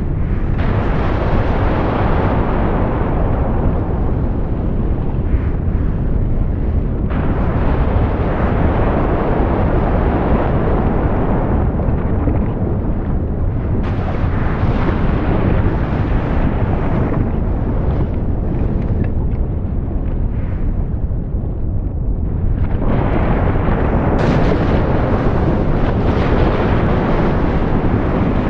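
Volcanic eruption: loud, continuous rumbling noise, heaviest in the low end, that changes character abruptly several times along the way.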